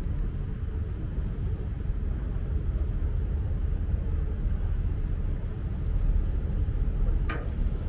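Steady low rumble of a Seine tour boat's engine heard from on board, with a brief higher-pitched sound near the end.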